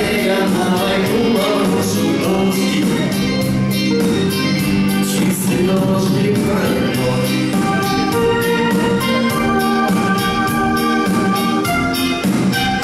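Live band playing a song on keyboard, acoustic guitar, bass guitar and electric guitar, with sustained keyboard and guitar notes over a steady quick beat.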